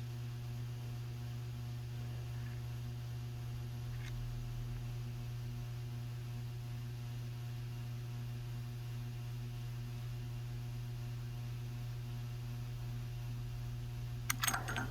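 Steady low electrical hum, like mains hum, with a brief cluster of light clicks near the end.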